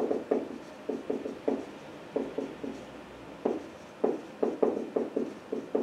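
Dry-wipe marker writing on a whiteboard: a run of short, irregular strokes as letters are written, several a second with brief pauses between words.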